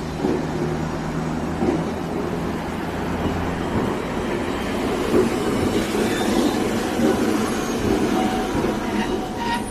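Iyotetsu streetcar pulling into the stop and rolling past alongside the platform, its wheels rumbling on the street-running rails. A steady low hum stops about four seconds in, and the rumble carries on from there.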